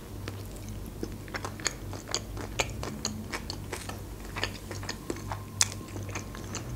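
Close-miked biting and chewing of a soft tortilla wrap: a string of short, wet mouth clicks and smacks over a faint, steady low hum.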